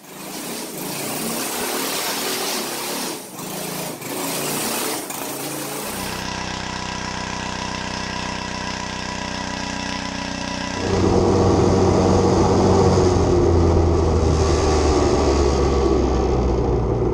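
Small gasoline engines in a string of short clips. After a rough, noisy opening, a minibike engine runs steadily at about six seconds in while its rear tyre smokes in a burnout. Then a louder go-kart engine cuts in under way.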